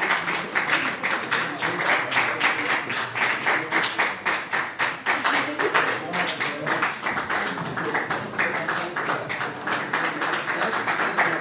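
Audience clapping continuously in quick, close-set claps, with voices chattering underneath.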